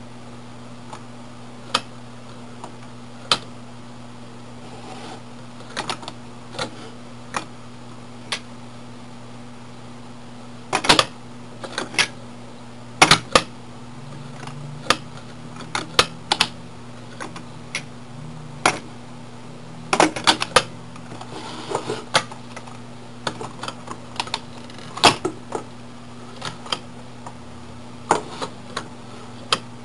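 Plastic clicks and clacks from a Mattel monster-truck toy as its orange lever and moving parts are worked by hand, coming irregularly, sometimes in quick clusters, over a steady low hum.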